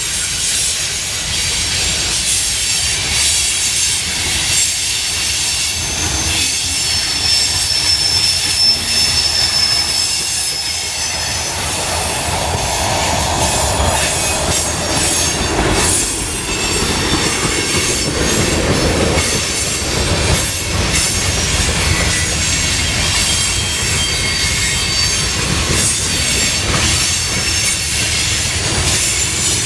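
Freight cars of a passing freight train rolling by close at hand: a steady rush of steel wheels on rail with repeated clacking over the rail joints and high-pitched wheel squeal. A thin squeal holds for a few seconds about a quarter of the way in.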